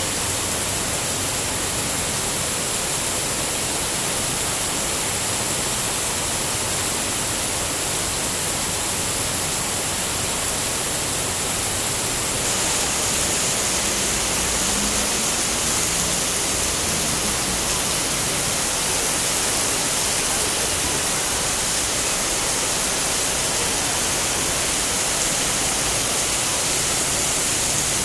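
Heavy rain pouring, a steady dense hiss that gets slightly louder about twelve seconds in.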